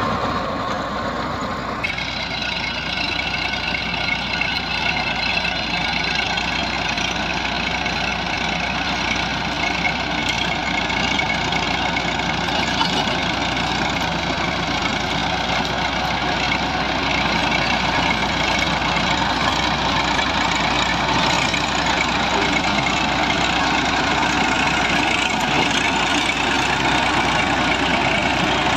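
New Holland 3220 tractor's diesel engine running steadily under load while the Shaktiman rotavator behind it churns dry soil, a dense continuous working sound with a steady high whine over it.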